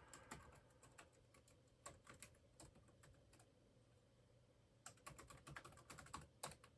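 Faint typing on a computer keyboard: scattered keystrokes, a pause, then a quicker run of keys near the end.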